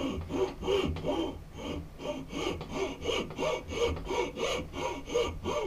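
Steel hand file rasping back and forth across the end of a wooden hammer handle held in a vise, in quick, even strokes, about three a second.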